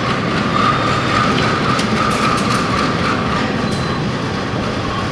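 Diesel locomotive running steadily as it rolls slowly along the track, with a few sharp clicks from the wheels and rails.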